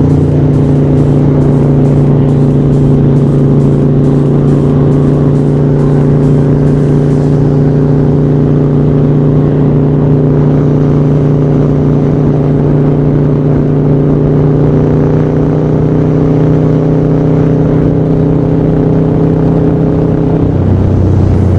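Harley-Davidson Sportster 1200 with a Screamin' Eagle Stage IV kit, its V-twin running steadily at cruising speed while riding, with wind rush on the microphone. The engine note changes about a second before the end.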